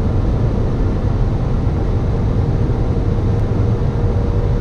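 Car at full throttle at about 190–200 km/h: a steady, loud low drone of turbocharged petrol engine, wind and road noise with no gear change.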